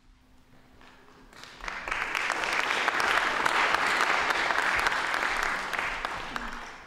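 Audience applauding, starting about a second and a half in, holding steady, then fading out near the end.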